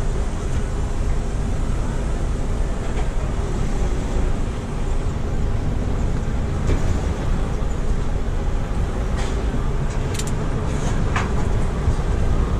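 Heavy livestock truck's diesel engine running steadily, a continuous low rumble, with a few short sharp clicks near the end.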